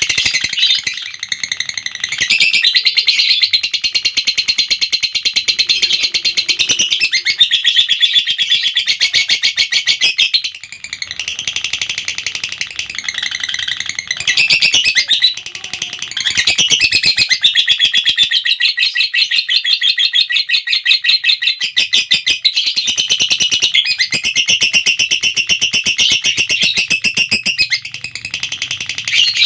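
Lovebird 'ngekek': a long, nearly unbroken stream of rapid, high-pitched chattering trills, pausing briefly about ten, fifteen and twenty-eight seconds in.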